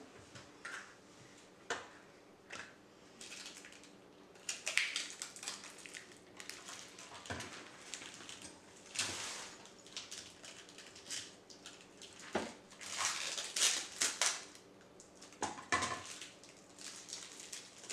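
Plastic packaging crinkling and rustling in irregular bursts as wrapped plastic parts are handled, with a few light clicks and knocks.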